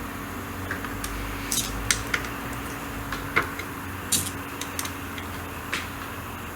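Light, scattered metal clicks and clinks of hand tools and parts being handled during reassembly, over a steady background hum.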